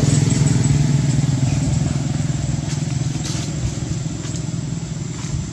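An engine running steadily with a low rumble that grows slightly quieter toward the end, with a faint high steady tone above it.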